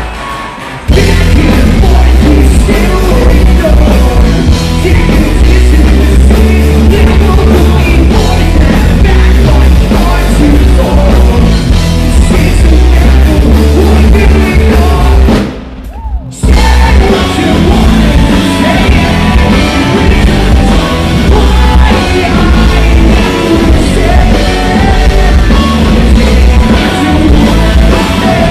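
Live rock band playing: electric guitar, bass guitar and drum kit under a shouted, sung lead vocal. The music breaks off for about a second about halfway through, then comes back in.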